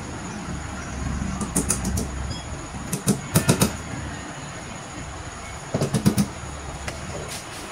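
Three short bursts of quick sharp clicks and taps as a hand tool works a white particleboard cabinet panel during flat-pack assembly, over a steady low hum.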